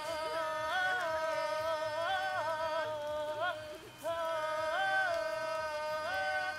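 Wordless singing: a held note that steps up a little and drops back about every second or so, with a short break about four seconds in.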